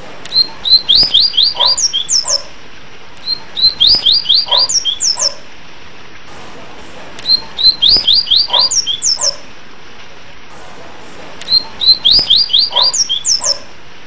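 Yellow-bellied seedeater (papa-capim, coleiro-baiano) singing its 'tui tui' whistle song: four short phrases about every three to four seconds. Each phrase is a couple of clear notes, then a quick run of down-slurred whistles ending in a few higher ones, over a steady background hiss.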